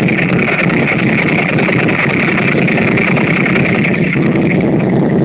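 Ducati 998S's 90-degree V-twin engine idling steadily, heard close to its exhaust.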